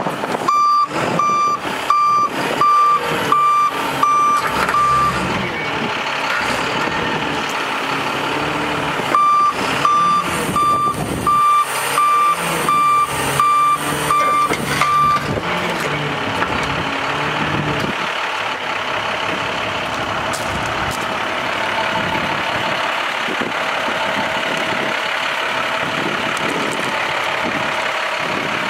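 Warning alarm on an Altec digger derrick beeping about twice a second while the hydraulic outriggers are lowered, in two runs of about five and six seconds with a pause between, over the truck's MaxxForce DT diesel engine running. After the second run only the engine keeps running steadily.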